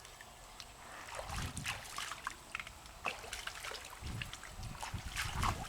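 Water trickling and splashing in small, irregular splashes, with a low rumble at times.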